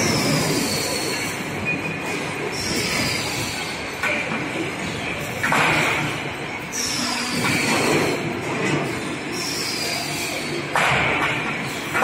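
Double-pot mixer for abrasive cutting-disc raw materials running, with a steady rushing noise. Several times it gives a high squeal that slides down in pitch. Louder surges of noise come about halfway through and again near the end.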